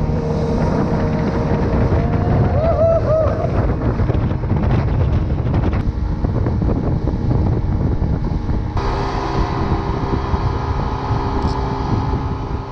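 Yamaha 40 hp outboard motor running at speed, with water rushing and wind buffeting the microphone. The engine note shifts abruptly twice, about six and nine seconds in.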